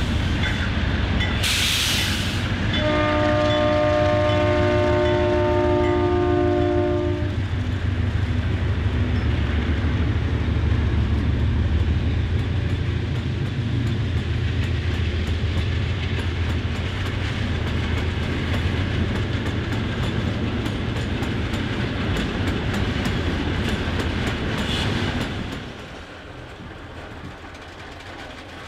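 A pair of GE C30-7 diesel locomotives labour up a grade with a heavy iron ore train, their engines giving a low steady drone. About two seconds in there is a short burst of hiss, then a chime horn sounds one long blast from about three to seven seconds. The loaded ore cars roll by with clicking wheels, and the sound drops sharply near the end.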